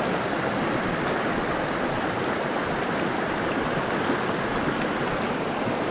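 Steady rush of a fast, shallow mountain river running over rocks in a riffle.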